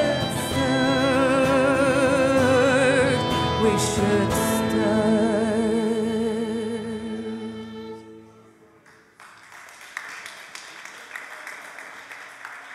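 A woman singing long, wavering notes over acoustic guitar and violin as a folk song ends; the music dies away about eight seconds in. Audience applause follows.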